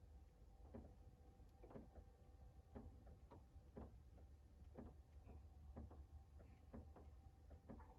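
Near silence with faint ticks about once a second, a few extra ones in between, over a low steady hum.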